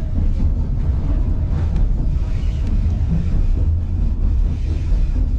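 Steady low rumble of a moving White Pass passenger train, heard from aboard, with wind buffeting the microphone.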